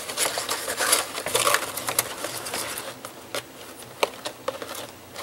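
Rustling and crinkling of a sheer ribbon bow and the paper gift box under it as the bow is untied and turned around by hand, with scattered small taps and clicks. The handling is busiest for the first three seconds, then thins to a few separate ticks.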